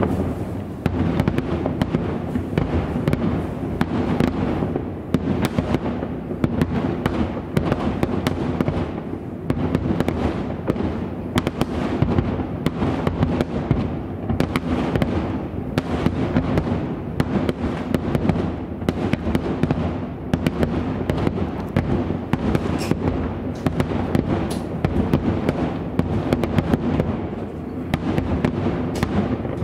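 Aerial firework shells bursting in a dense, continuous barrage, the booms and crackles overlapping with no pause: the closing barrage of the fireworks display.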